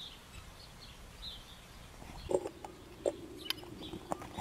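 Faint birds chirping over an open field, then from about halfway a few short knocks and clicks.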